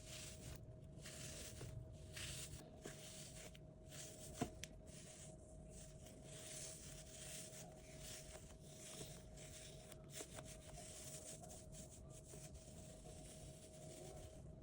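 Near silence: faint room noise with a steady faint tone and one small click about four seconds in.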